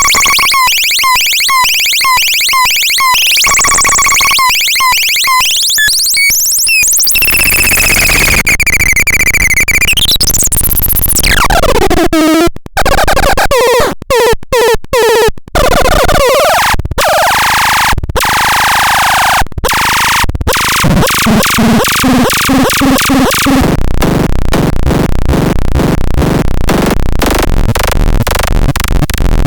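Harsh electronic noise synth sounds from the Dead Kitten noise device. Fast choppy pulses over two steady tones give way to a big pitch sweep that dips and climbs again, then stuttering cut-outs, and finally a fast, dense buzzing pulse train.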